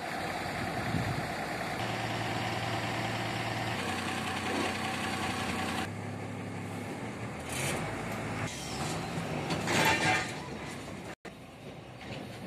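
Diesel engine of a 2008 Ashok Leyland Tusker Super 2214 cargo truck idling with a steady low hum. Two short noisy bursts come through about halfway and again near the end, the second the louder.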